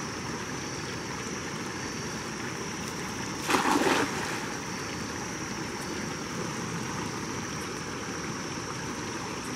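A cast net thrown into the water lands with one splash about three and a half seconds in, lasting about half a second. Behind it runs a steady rush of flowing water and a steady high drone.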